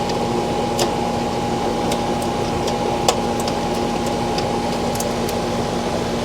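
Steady hum of a running central air-conditioning condensing unit, with about half a dozen light clicks from parts being handled, the loudest about three seconds in.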